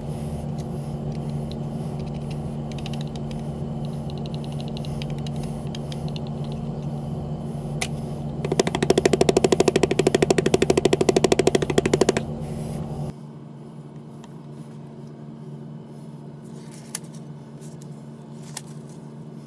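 Fast, dense rattling as a small mold box is jiggled against a tabletop, loudest for about three and a half seconds in the middle, over a steady low hum; a couple of light clicks near the end.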